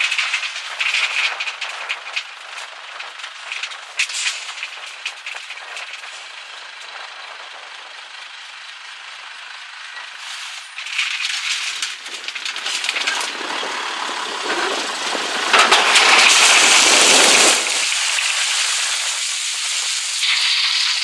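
Tipper truck dumping its load: earth and stones rattling and clattering as they slide out of the raised deck. The clatter grows louder about eleven seconds in and is loudest around sixteen seconds in, as the bulk of the load comes off, then eases.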